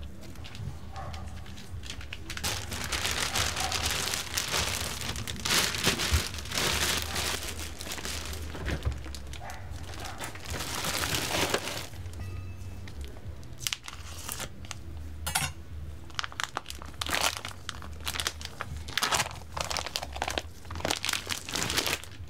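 Crinkling and crunching handling noise: dense for about ten seconds, then broken into separate crackles and clicks, over a steady low hum.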